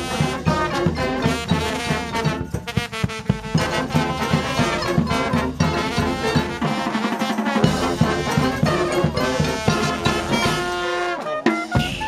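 Street brass band playing live: horns and sousaphones over a steady drumbeat.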